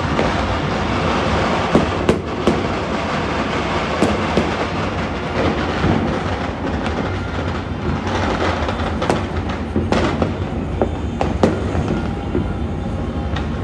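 Many firecrackers and fireworks going off at once across a city, a continuous crackling din with sharper single bangs standing out every few seconds.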